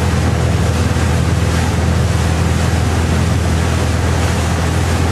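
Steady drone of a motorboat engine running at constant speed, with water rushing past the hull and wind buffeting the microphone.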